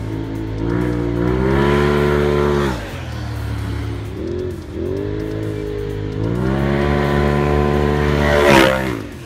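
Polaris RZR XP 1000 Turbo's turbocharged twin-cylinder engine, heard through a Gibson aftermarket exhaust, revving up and holding, then dropping back about three seconds in. After a few short blips it revs up and holds again, ending in a brief loud rush near the end as it falls off.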